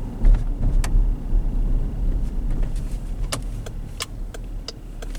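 Road noise inside a 2016 Dodge Durango's cabin while it drives over a rough road: a heavy low rumble with scattered knocks and rattles as the tyres hit the bumps.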